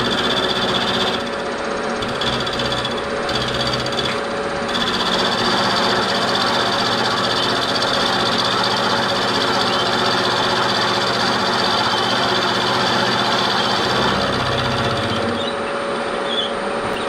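Milling machine cutting a cast iron cylinder-cover casting with a carbide end mill: a steady, rough grinding cut with a high whine that drops out briefly a few times.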